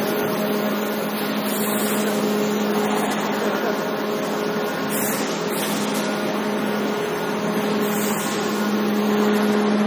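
Brick-making plant machinery running, a steady even hum with a constant low tone over a wash of machine noise, the tone a little louder near the end.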